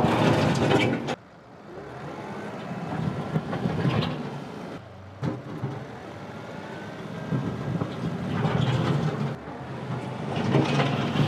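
A John Deere 2038R compact tractor's three-cylinder diesel engine running as the tractor drives over the ground. The sound drops off abruptly about a second in and breaks again about five seconds in, as at cuts between shots.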